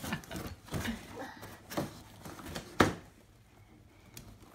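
Cardboard shipping box shaken upside down and knocked about, giving a run of hollow knocks and rustles, with one sharp, loud knock about three seconds in.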